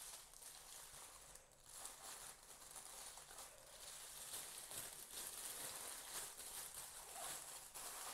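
Faint, irregular crinkling and rustling of a plastic roasting sleeve as hands press and wrap it tightly around a rolled turkey thigh.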